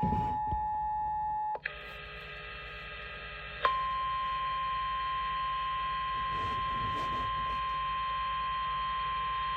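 Weather radio alert tones: a steady tone, then a quieter stretch of several steady tones. About three and a half seconds in, the 1050 Hz warning alarm tone starts sharply and holds steady. It signals that a warning broadcast is about to follow.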